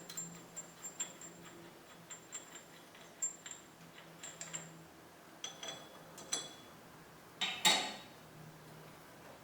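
Metal socket ratchet clicking and small metal-on-metal clinks as the front hub's mounting bolts are backed out, with one louder metal clank about three quarters of the way through.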